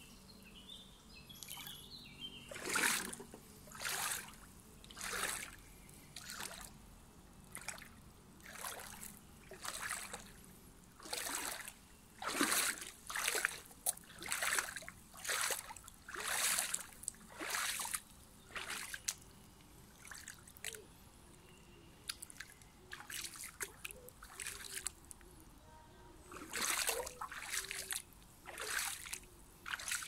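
Footsteps through a shallow, stony stream bed, a splash or crunch with each step, roughly one a second. The steps grow fewer and fainter for a few seconds past the middle.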